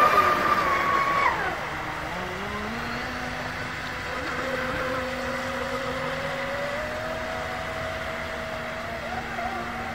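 Electric motor of an RC racing catamaran whining at high speed. About a second and a half in, the whine drops in pitch and fades, then carries on fainter and steady, its pitch slowly rising.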